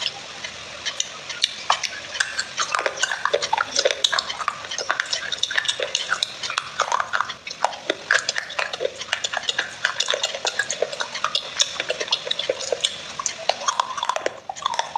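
Fingers squeezing, stirring and scooping wet clay paste in a glass bowl right at the microphone: a dense, continuous run of small wet squelches and clicks.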